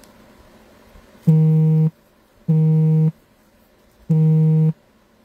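A low electronic buzz sounding four times, each buzz about two-thirds of a second long and a little over a second apart.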